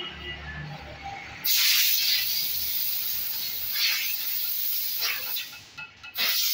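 Compressed air hissing from a blow gun in long blasts, starting suddenly about a second and a half in, swelling several times, and briefly stopping just before the end.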